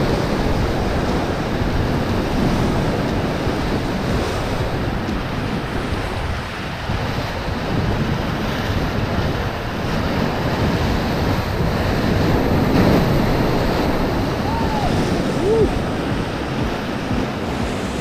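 White-water rapids of the Ganges rushing and splashing around an inflatable river raft, with wind buffeting the raft-mounted microphone.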